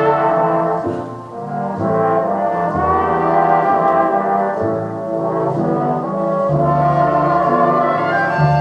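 A recorded jazz vocal track playing over hi-fi loudspeakers driven by a Sansui BA-2000 power amplifier. This stretch is an instrumental passage between sung lines, with a bass line stepping from note to note under sustained chords.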